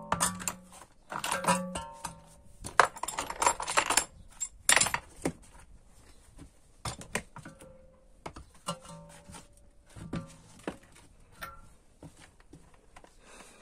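Metal tools clinking as a 21 mm socket is fitted onto a cordless impact wrench and set on the strut's top nut: scattered sharp clinks, some leaving a short ringing tone.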